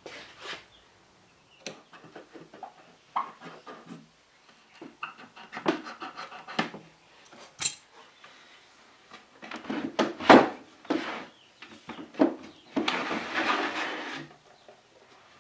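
Irregular knocks, bumps and clatters of a solid mahogany desk being handled and turned over, with a longer scraping stretch near the end.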